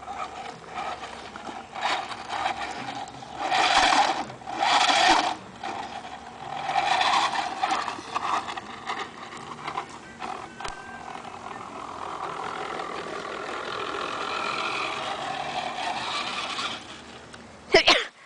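Electric drive motor and gears of a radio-controlled toy Hummer whining in short bursts as it drives, loudest about four and five seconds in, then running more steadily for several seconds. A brief sharp sound just before the end.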